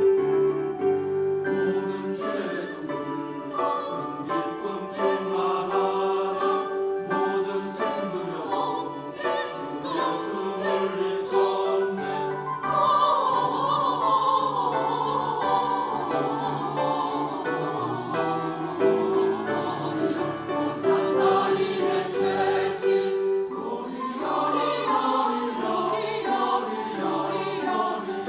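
A choir singing a slow song in held notes, with piano accompaniment. About halfway through, a higher line with wide vibrato comes to the front for a few seconds.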